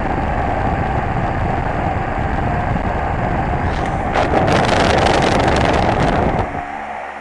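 Wind from an electric fan on high buffeting the microphone of an F9 motorcycle DVR camera, a steady blustering noise that grows louder from about four to six seconds in. Near the end the buffeting drops away, leaving the fan's steady hum.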